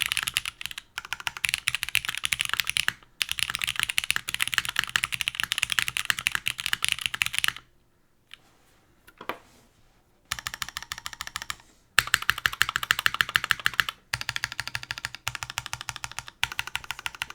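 Typing on a custom mechanical keyboard with lubed MX Black linear switches, GMK keycaps and an aluminum plate. Fast keystrokes come in bursts, with a pause of about two and a half seconds starting about 8 seconds in.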